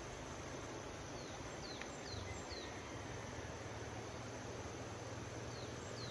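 Faint outdoor ambience: a steady hiss, with a bird giving short falling chirps about six times, in a cluster over the first three seconds and twice more near the end.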